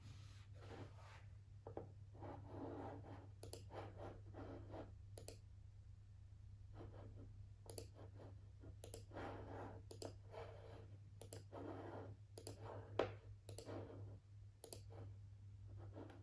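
Irregular, sharp computer-mouse clicks, with stretches of soft scratching from a stylus writing on an iPad screen between them.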